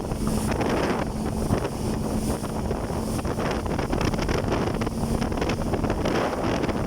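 Jet ski under way: wind buffeting the microphone over a steady low engine hum.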